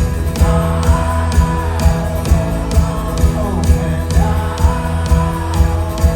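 Folk-rock band playing live, an instrumental passage between verses with a steady bass drum beat about twice a second and a melody line gliding over it.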